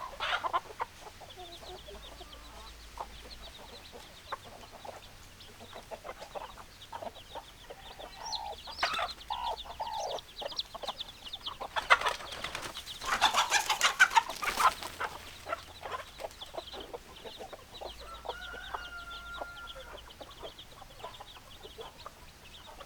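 Chickens clucking: many short, repeated clucks, with a louder, noisier stretch of calling about halfway through.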